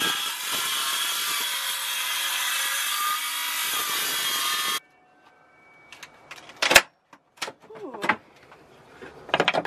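Ryobi cordless circular saw cutting through a countertop: a steady, high, hissing saw noise for about five seconds that stops suddenly. After it come a few scattered knocks and clunks, the sharpest about seven seconds in.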